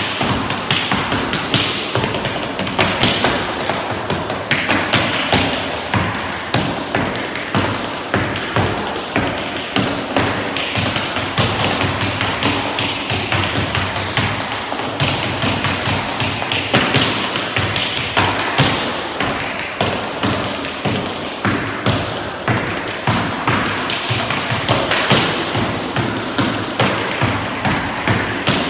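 Tap shoes striking a board tap floor in a fast, continuous solo rhythm, unaccompanied, with louder stamps accenting the stream of taps.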